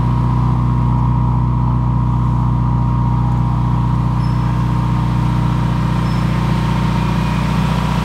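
2015 Subaru WRX's turbocharged 2.0-litre flat-four idling steadily through a new custom 304 stainless-steel Carven exhaust, heard close to the tailpipe.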